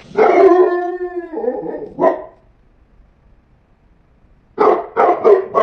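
Dog barking: a long, drawn-out bark of about two seconds with a short bark right after it, then after a pause three quick sharp barks near the end.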